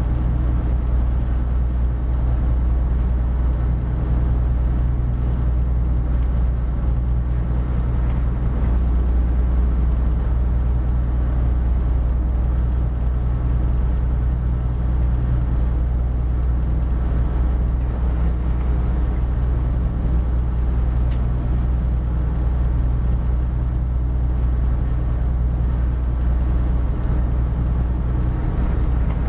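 Steady low drone of a loaded inland cargo ship's diesel engine running under way, heard from the wheelhouse. A faint short high beep sounds three times, about ten seconds apart.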